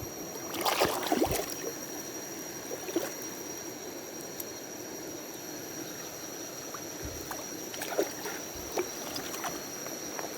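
Water splashing about a second in, then a stream flowing steadily with a few faint knocks.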